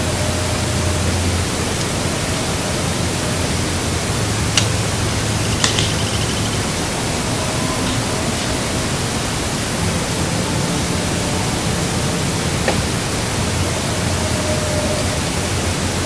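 Steady loud hiss, the amplified noise floor of a body camera left recording overnight at a forest camp, broken by a few sharp clicks: one about four and a half seconds in, a pair soon after, and one more near the end.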